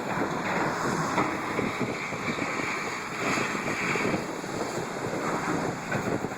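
Wind buffeting the microphone in irregular gusts over a steady background of construction machinery noise.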